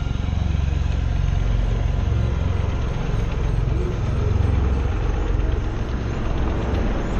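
A heavy engine running steadily at idle: a low, pulsing rumble.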